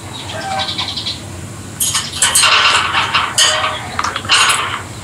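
Rosy-faced (peach-faced) lovebirds calling. Soft, high chattering at first, then from about two seconds in, loud, harsh, screechy calls in quick runs.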